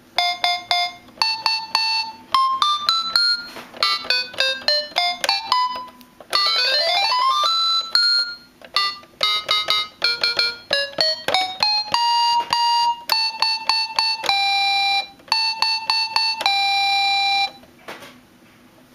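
Red 'mini PIANO' children's electronic toy keyboard played with one finger: a tune of short electronic notes, a quick run of notes climbing up the keys about six seconds in, then a series of longer held notes. The playing stops about a second before the end.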